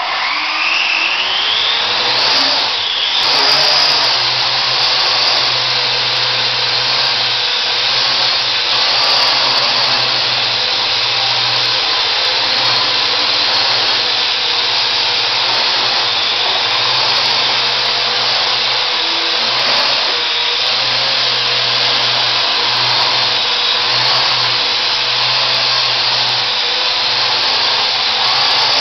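Parrot AR.Drone quadcopter taking off: its four motors and propellers spin up in a rising whine over the first few seconds, then hold a steady whir as it hovers.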